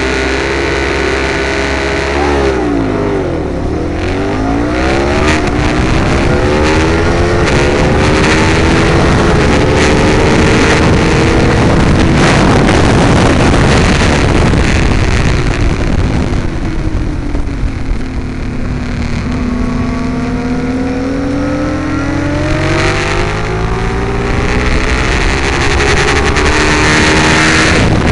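Ducati 848's V-twin engine at racing speed, recorded onboard: its pitch falls sharply about three seconds in, climbs under hard acceleration, sinks again midway as the bike slows, then climbs once more toward the end, over steady wind rush.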